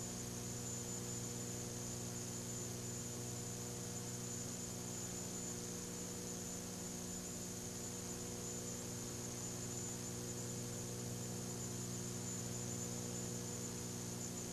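Steady electrical mains hum with hiss and a faint high whine in the recording's audio chain; nothing else is heard.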